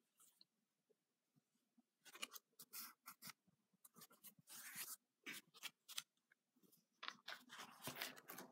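Faint paper rustling and crinkling as a spiral-bound sketchbook and a loose paper cut-out are handled and its pages turned, in a string of short scratchy rustles starting about two seconds in, with longer rustles about halfway through and near the end.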